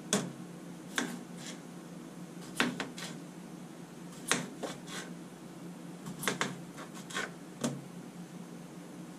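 Chef's knife slicing through a raw potato and knocking down onto a plastic cutting board: a dozen or so sharp, irregularly spaced chops, sometimes two or three in quick succession, over a steady low hum.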